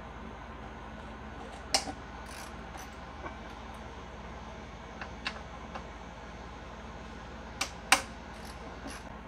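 Scattered light metal clicks and knocks as a Honda GX160 engine's fuel tank and sheet-metal shroud are gripped and shifted by hand, the sharpest just under two seconds in and near the end, over a steady low hum.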